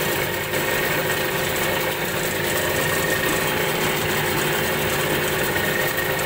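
New ALLFA CG 9.8 hp outboard motor running steadily at idle in a test tank of water, on its first start after unpacking.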